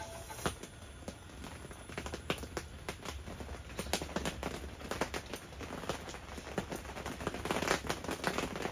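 Irregular light tapping of raindrops on the tent, a few sharp drops a second at uneven strength, over a faint steady low hum.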